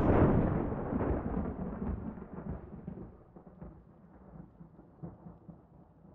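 A thunderclap rumbling away and fading over about four seconds, leaving a faint crackling tail.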